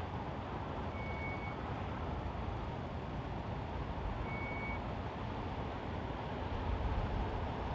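Steady city road traffic noise, a broad hum of passing cars with a low rumble that swells near the end as a heavier vehicle goes by. Two short high beeps sound, about a second in and again about four seconds in.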